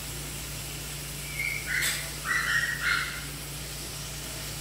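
Four short, high calls in quick succession, of the kind an animal or bird makes, from about one and a half to three seconds in, over a steady low hum.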